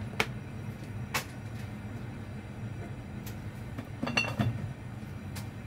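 A steady low hum from a kitchen appliance, with a few sharp ticks and clicks, the loudest cluster about four seconds in, as a nonstick pan of oil heats on the stove.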